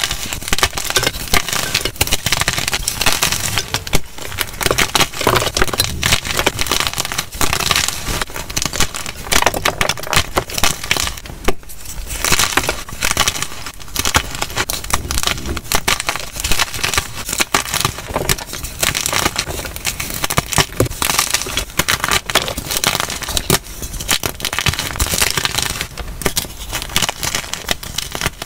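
Blocks of gym chalk (magnesium carbonate) being snapped and crushed by hand into chunks and powder: dense, unbroken crunching and crackling full of crisp snaps.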